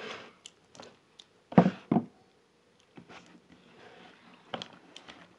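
A hand squelching through wet, sticky puff puff batter in a plastic bowl: irregular wet squishes and slaps, with two louder thuds about a second and a half in.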